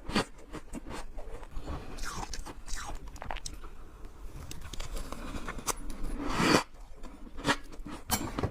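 Freezer frost being bitten and chewed close to the microphone: a run of sharp, uneven crunches, with one louder, longer crunch about six seconds in.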